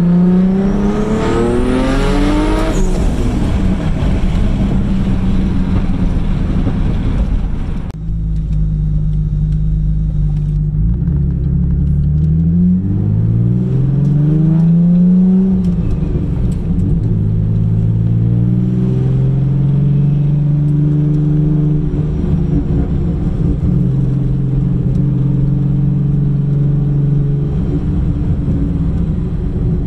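Mitsubishi 3000GT VR-4's turbocharged 3.0 L V6, converted to a single turbo, running at around 2,500–3,000 rpm, heard from inside the cabin. The revs climb and drop near the start and again midway, then hold steady.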